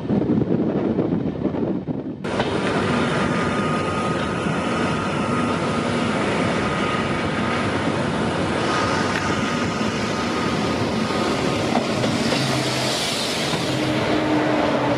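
Wind buffeting the microphone at first, then, from about two seconds in, the steady clatter and rumble of a moving passenger train heard from an open coach door, with a thin steady squeal from the wheels. In the second half an oncoming train, an electric locomotive and its coaches, rushes past close by on the next track, and the rushing noise grows louder toward the end.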